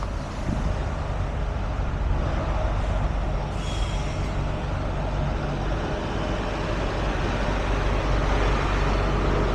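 Heavy diesel truck engine idling steadily, with a short hiss about three and a half seconds in.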